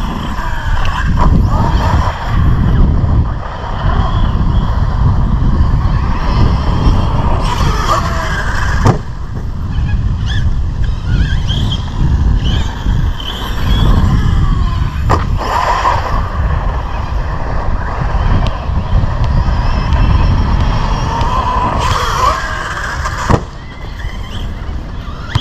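Brushless Arrma RC truck driving over grass, its electric motor whining up in rising bursts as it accelerates, with a few sharp knocks, over a loud low rumble.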